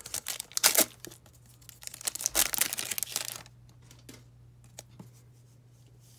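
Foil wrapper of an Upper Deck hockey card pack being torn open and crinkled, a dense crackling with the loudest rips just under a second in. It goes quiet after about three and a half seconds, leaving only a few faint ticks as the cards come out.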